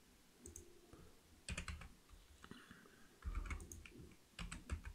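Faint, scattered clicks of a computer mouse and keyboard keys, a few separate clicks and short clusters with soft low thuds.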